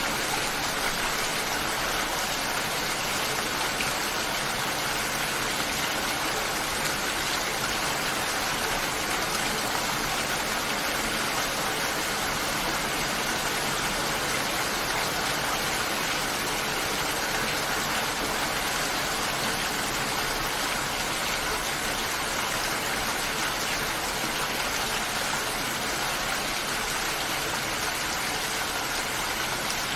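Steady rainfall, an even hiss that does not let up.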